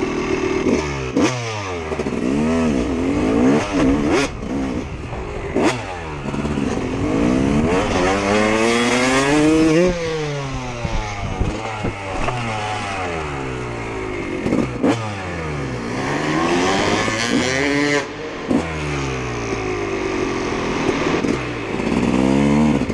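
Motocross bike engine revving up and dropping back over and over, with one long climb to a high peak about ten seconds in, broken by sharp knocks.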